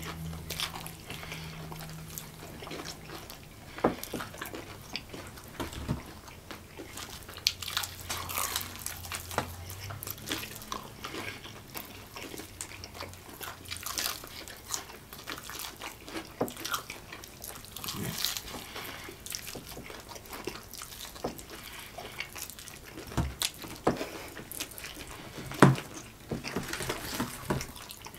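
Close-up eating sounds of two people chewing fried chicken: wet smacking and slurping mouth noises, with sharp crunches and clicks of the breading and bones now and then.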